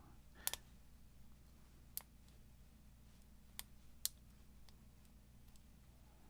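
A handful of sharp, sparse clicks from a lock pick working the pins of a Master Lock No. 5 padlock under heavy tension, over a low steady hum.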